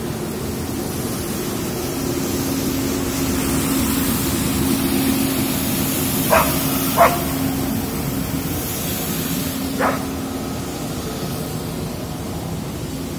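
A dog gives three short barks, two in quick succession just past the middle and a third about three seconds later, over a steady low vehicle-engine drone.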